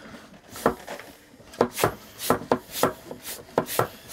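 Hand-operated Seago vacuum oil extractor being pumped: a series of plunger strokes, each a sharp knock, about two a second. The strokes are building suction to draw engine oil up through the dipstick tube.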